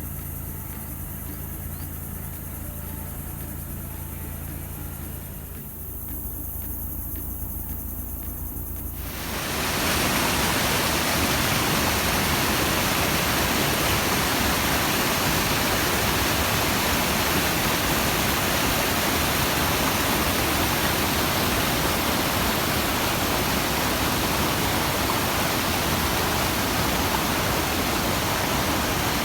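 Waterfall rushing, a steady, even roar of falling water that sets in abruptly about nine seconds in; before it, a quieter low rumble.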